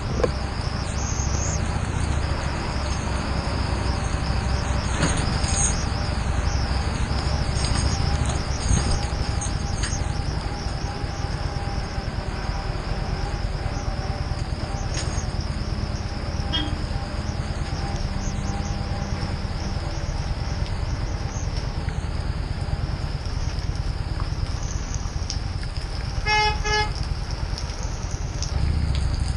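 Harley-Davidson Street 750's V-twin engine running at low speed on a rough, wet track, with steady wind and road noise. About 26 seconds in, a vehicle horn sounds once for under a second.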